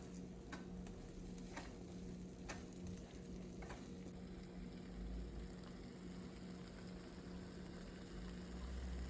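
Ground beef, onion and bell pepper with tomato paste frying faintly in a pan as the mixture is stirred, with a few light clicks of the stirring utensil against the pan in the first four seconds. A steady low hum runs underneath.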